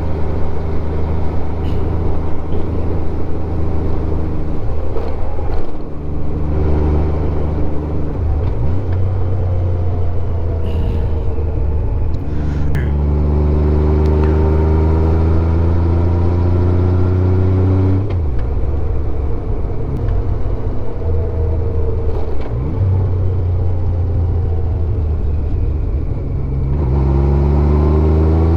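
Honda Gold Wing GL1500's flat-six engine running under way. Its pitch climbs steadily under acceleration around the middle, drops sharply at a gear change, and climbs again near the end.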